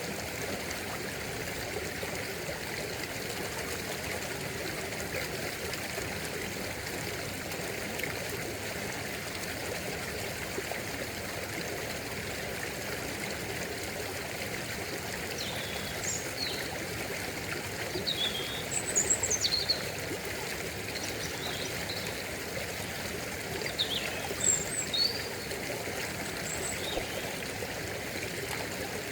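Stream water running steadily. About halfway through, a bird starts chirping with short, quick high calls on and off.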